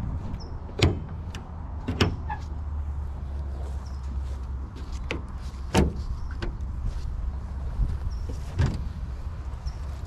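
Four sharp knocks or clanks one to three seconds apart, with fainter ticks between them, over a steady low hum.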